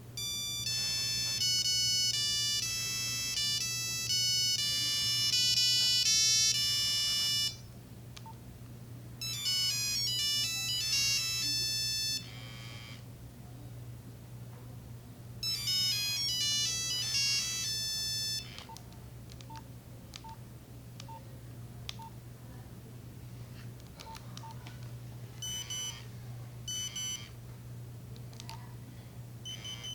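Nokia 3395 mobile phone playing short beeping ringtone melodies, three in turn with pauses between them, the first about seven seconds long. Faint ticks follow, then a few short beeps near the end, over a low steady hum.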